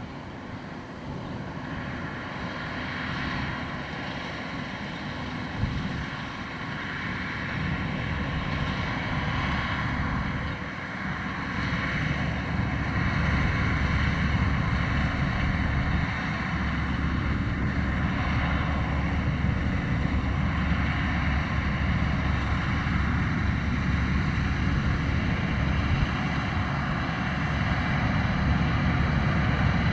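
Deutz-Fahr C7206 TS combine harvester running steadily while harvesting wheat. Its low drone grows louder about a third of the way in.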